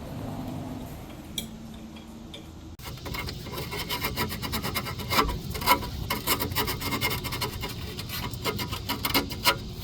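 Rapid, irregular rasping and scraping of a tool on metal as the new 3/16 brake line is cut to length. It starts abruptly about three seconds in, after a quieter stretch.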